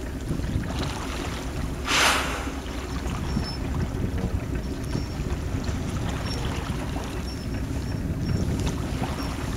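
A humpback whale's blow about two seconds in: one loud, short whoosh of breath as the whale surfaces. Under it, a steady low rumble from the boat and the wind.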